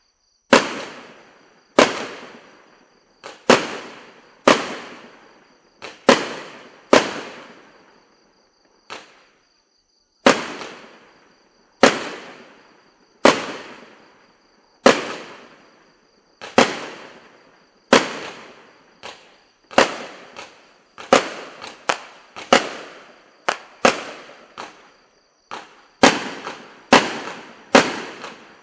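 A consumer firework, the "Flash Mob" item, firing one shot after another: a sharp bang roughly every second, each trailing off in a fading crackle and echo. The shots come faster and closer together in the last third, with several in quick succession near the end.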